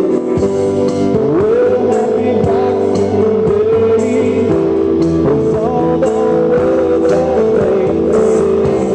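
Live band playing a blues-rock number on guitar and keyboards, loud and steady, with a lead line that slides up in pitch about a second in and is then held.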